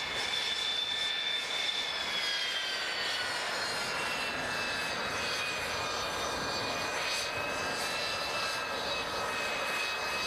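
Jet trainer's turbine engine whining as it taxis, a steady rush with a high whine that glides down in pitch a few seconds in, then holds steady.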